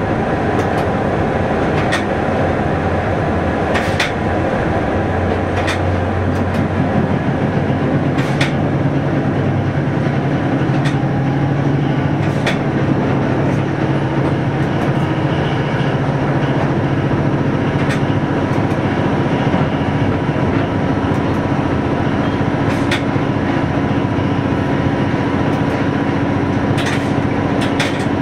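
A train running along the track, heard from inside the driver's cab: a steady drone with humming tones that shift slightly in pitch, and a sharp click from the wheels every couple of seconds.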